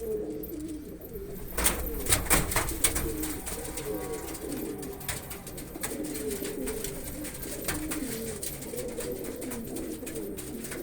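Domestic pigeons cooing, several calls overlapping throughout, with a few sharp clatters about two seconds in.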